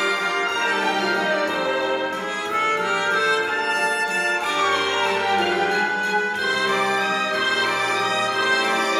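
Orchestral music with sustained strings and brass, a theatre pit orchestra playing between scenes of the musical.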